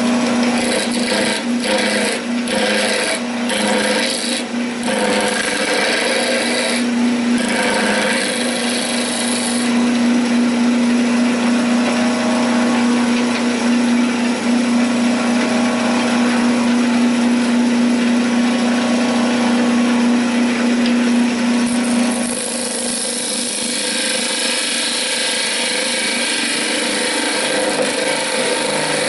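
Southern yellow pine spinning on a wood lathe and being cut with a hand-held turning tool: a steady hum under a scraping, shaving hiss. The cutting comes in short strokes for the first several seconds, then runs evenly; at about three-quarters of the way through the hum fades and a brighter, hissier cut takes over.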